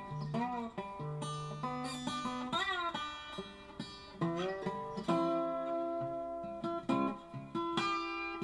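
Background music: a plucked guitar playing a melody, with several notes sliding up in pitch.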